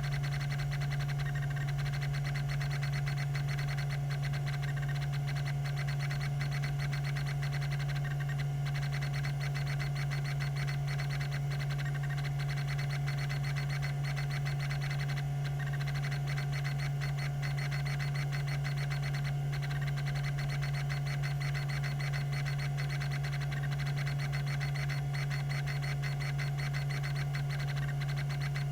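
Tandon TM362 20 MB hard drive running: a steady spindle hum with a continuous rapid chatter of fine ticks from its rack-and-pinion stepper head actuator stepping across the tracks.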